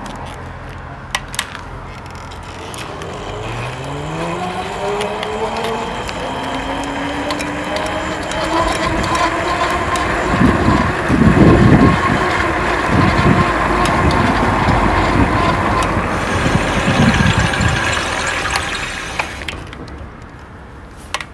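Fat-tire electric bike on a test ride: the hub motor's whine rises in pitch as it picks up speed, holds steady, then fades as the bike slows to a stop. Wind buffets the microphone in the middle of the ride.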